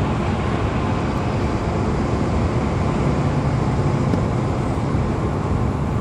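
Steady low rumble of road and engine noise inside a moving vehicle's cabin.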